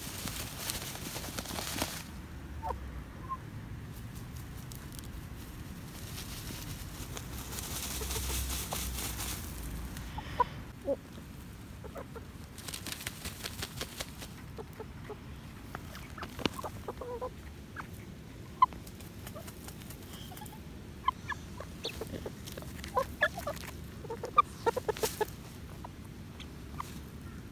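Young chickens dust bathing: a few bursts of rustling and scratching in dry dirt and feathers, then many short, soft clucks and sharp little clicks through the second half.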